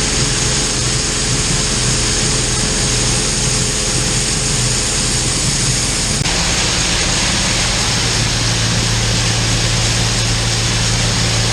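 Large farm diesel engine running steadily at working speed, with a low, even drone; about six seconds in the note changes abruptly and settles lower.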